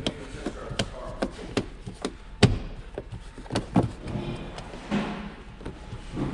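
Plastic interior trim panel and its clips being pushed and knocked into place: a string of sharp clicks and knocks with rubbing and handling noise between them, the loudest knock about two and a half seconds in.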